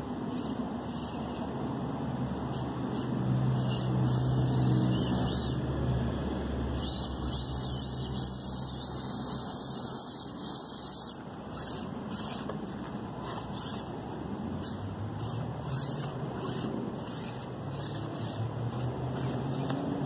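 An Axial SCX24 Deadbolt 1/24-scale micro crawler's small electric motor and worm-gear axles whining as it crawls over rocks, with clicks and scrapes from the tyres on stone. It is louder and busier from about 3 to 11 seconds in.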